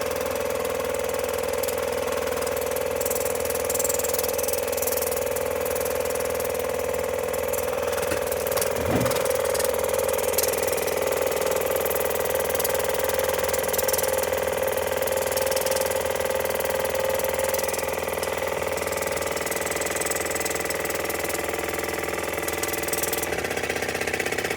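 Waterpik oral irrigator's pump motor running with a steady buzz, its warm-water jet hissing as it sprays into a typewriter's mechanism to blast out white-out and eraser shavings.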